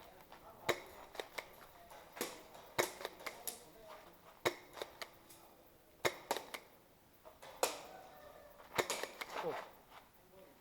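Spring airsoft guns firing: irregular sharp snaps and clicks, some in quick pairs or triples, with a short ring in the room after each.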